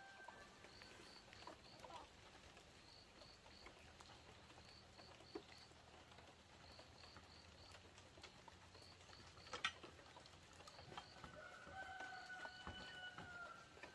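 Faint rural ambience: a high chirp repeating in quick runs of three, a few light clicks and taps with one sharp click about ten seconds in, and a drawn-out animal call in the last few seconds.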